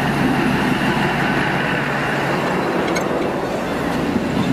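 Passenger train rolling slowly past along a station platform: the steady running noise of the train and its wheels on the rails.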